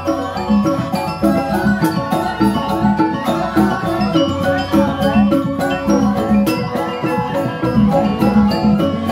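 Balinese gamelan playing for a joged dance: mallet-struck keyed percussion ringing out fast interlocking patterns over steady kendang drum strokes.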